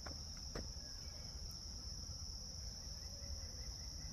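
Steady high-pitched insect chorus, with a couple of faint clicks in the first second.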